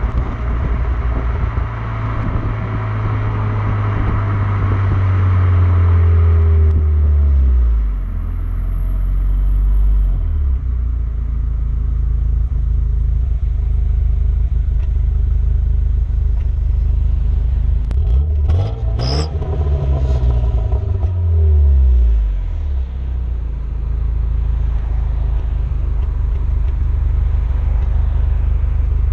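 Renault Megane R26's turbocharged 2.0-litre four-cylinder engine running on its standard exhaust. The note drops a few seconds in, rises sharply with a click about two-thirds through, then falls back. The car has the intermittent 'Megane cough', which the owner suspects is an injector fault or misfire.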